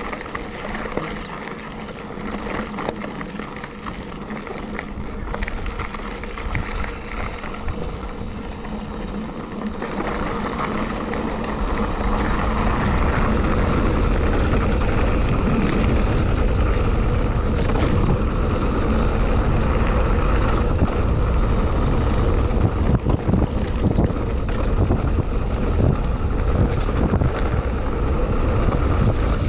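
Mountain bike rolling downhill over rough dirt and brick paving: tyre noise with frequent knocks and rattles from the bike over bumps. Wind on the microphone grows much louder about ten seconds in and then stays heavy.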